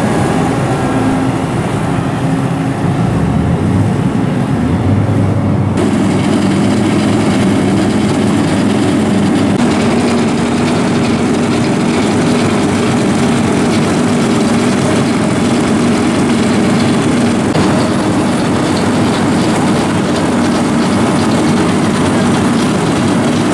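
Heavy diesel road-paving machinery running steadily at close range. A rubber-tyred road roller is heard first; after a change about six seconds in, it is an asphalt paver, with a dump truck tipping asphalt into its hopper.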